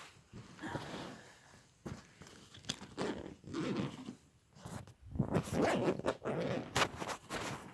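A zip being pulled in several irregular strokes, with rustling as a bag is handled; the strokes are loudest in the second half.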